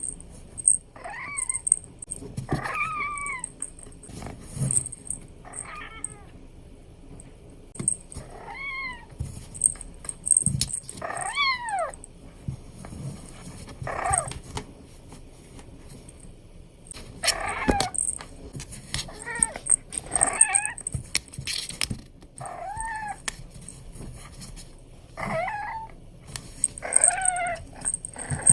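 Abyssinian kitten meowing during play: about a dozen short, high calls, each rising and then falling in pitch, with pauses between them. A few sharp knocks are heard among the calls.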